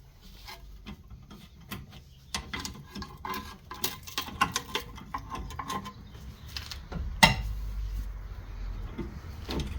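Hand tools clicking and knocking on metal as a rusted bolt on a car's front spindle is worked loose. The clicks come irregularly from a few seconds in, with one sharp knock about seven seconds in.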